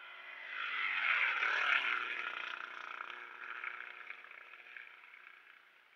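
Race-prepared Volkswagen Fusca (Beetle) with an air-cooled flat-four engine passing at speed. The engine note swells, drops in pitch as the car goes by about a second and a half in, then fades away.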